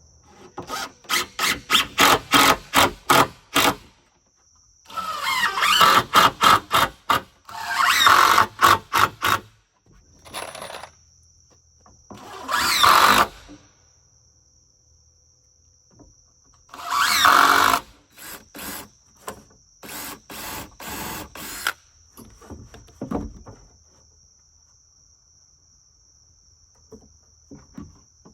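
A saw cutting through a wooden board in several bursts of rhythmic strokes, about three to four a second, with short pauses between bursts, trimming an overhanging edge off the board. A steady high chirring of crickets runs underneath.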